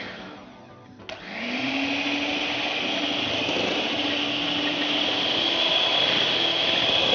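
Raylan electric hand mixer beating tart-dough ingredients in a glass bowl. Its motor winds down at the start; about a second in there is a click, and the motor starts again with a rising whine that then runs steadily.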